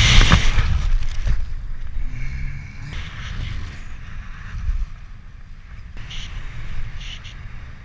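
Wind rushing over a helmet-mounted camera in BASE-jump freefall, loudest at first. It drops away about a second and a half in as the parachute opens. Lighter wind and fluttering noise follow under the canopy.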